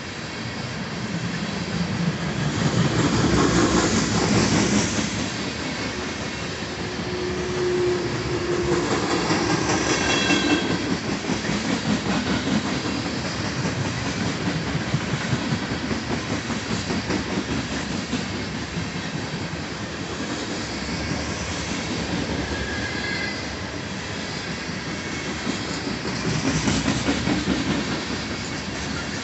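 Norfolk Southern freight train of tank cars rolling past: steady rumble and clatter of steel wheels over the rail joints, swelling louder a few times. Brief high-pitched wheel squeals about ten seconds in and again a little after twenty seconds.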